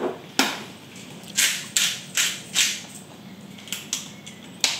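Seasoned potato pieces tossed in a large salad bowl to coat them: a run of short rustling scrapes, about five in the first few seconds, then fainter ones and a sharp click near the end.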